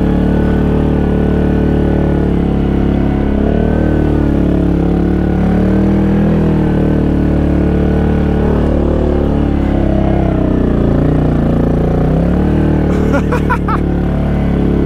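Yamaha 686 cc single-cylinder ATV engine running steadily in four-wheel drive through thick mud, its pitch rising and falling a little with the throttle.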